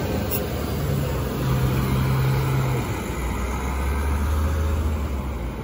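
Road traffic at close range: a city bus running as it pulls past, then a car driving by. A low engine hum drops in pitch about three seconds in, with a brief click near the start.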